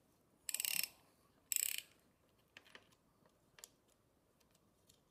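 Ratchet wrench clicking in two short runs about a second apart as it is swung back while loosening a motorcycle clutch lever's pivot bolt. A few faint ticks of tool and metal handling follow.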